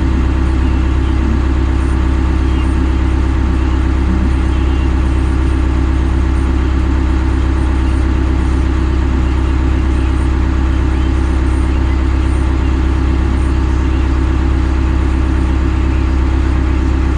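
Engine idling steadily: a deep, even running sound that holds the same speed throughout.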